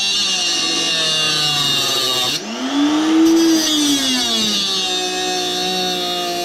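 Handheld electric power tool running on metal while a microwave magnetron is cut apart. Its motor whine shifts sharply in pitch from about two and a half seconds in, as the tool is pressed into the work, then settles back to a steady pitch.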